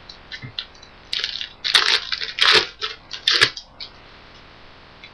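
Baseball card pack wrapper crinkling and tearing open in several short crackly bursts.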